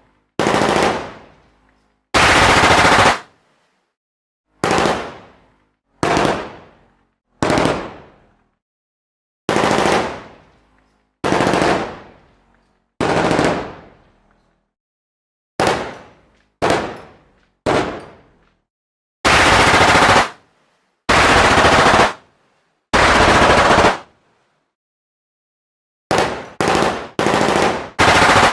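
Machine gun firing a string of separate bursts with silence between them: some short bursts that die away in a ringing tail, others about a second of sustained fire that cut off abruptly.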